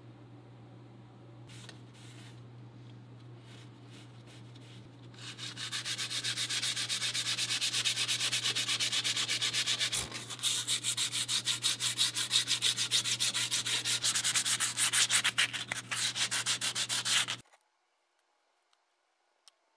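Blue sandpaper rubbed back and forth by hand in quick strokes over a varnished, cosmoline-soaked catalpa wood SKS rifle stock. The sanding starts about five seconds in, over a steady low hum, and cuts off suddenly near the end. The thick varnish and cosmoline make the sanding hard.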